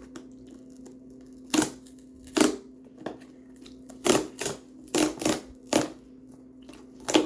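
Packaging being handled and tugged at its pull tab: about eight short, sharp handling noises at irregular intervals, over a faint steady hum.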